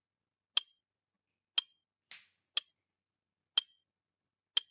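Countdown timer sound effect: sharp ticks once a second, five in all, with a fainter, softer sound between the second and third ticks.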